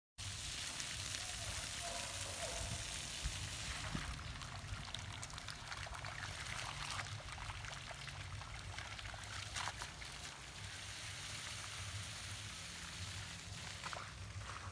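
Steady trickling and splashing of water over a flooded, freshly poured concrete slab, with a low rumble underneath.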